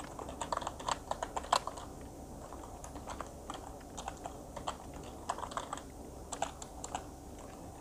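Computer keyboard keys clicking as a word is typed: irregular single keystrokes, with a quick run of them in the first second and a half and another around five to six seconds in.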